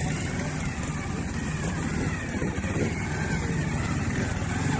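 Trials motorcycle's single-cylinder engine running steadily at low speed as the bike is ridden over rocks and obstacles in a trials section.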